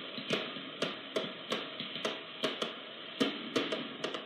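Fireworks going off close by: a rapid, irregular string of sharp bangs and cracks, about three a second, over a steady hiss.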